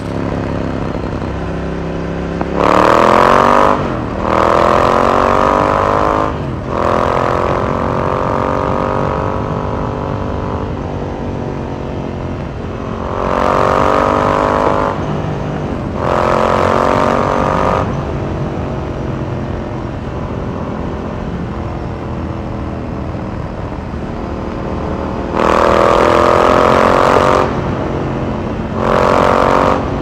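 Ducati Sport Classic's air-cooled L-twin heard on board while riding, with several hard accelerations. The pitch climbs through the gears with short breaks at the shifts, early on and again near the middle and near the end, between stretches of steadier cruising in a road tunnel.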